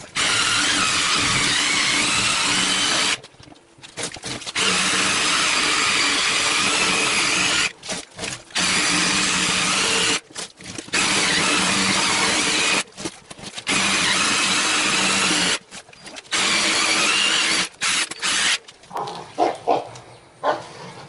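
DeWalt 18 V reciprocating saw with a demolition blade cutting through a car tyre, running in stretches of two to three seconds with short stops in between, about six times. Near the end it stops, leaving only a few knocks and rustles.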